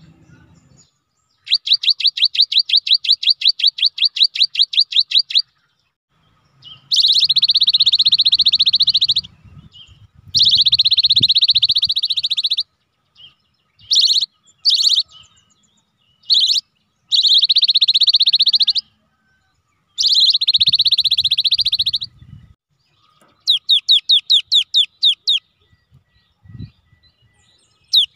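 Cinereous tit (gelatik batu) singing: bouts of rapid repeated whistled notes, about seven a second, alternating with long dense trills of a few seconds each, separated by short pauses.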